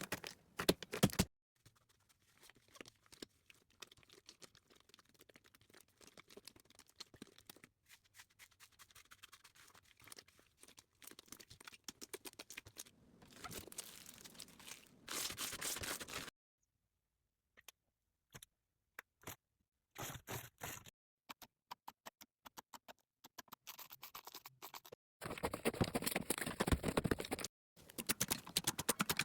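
Slime being squished and handled: fine crackling and clicking with wet tearing and scraping noises, in short stretches that start and stop abruptly, the loudest a little after the middle and near the end.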